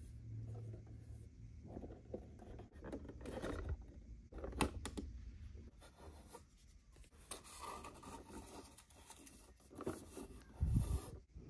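Fingers rubbing, scraping and tapping on a plastic dollhouse kitchen unit and the papered inside of its upper cabinet compartment, with small clicks along the way. A dull knock near the end is the loudest sound.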